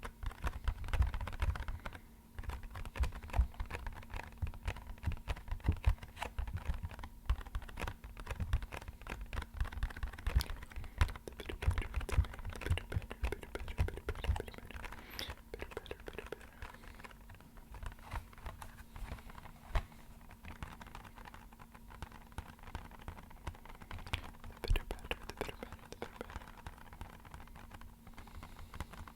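Rapid fingertip tapping on an empty box: a dense, uneven patter of light taps that sounds like rainfall.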